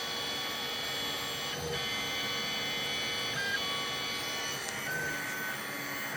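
Stepper motors of a Sherline mill 3D printing, giving a steady whine made of several tones, with short higher notes that switch on and off as the axis moves change.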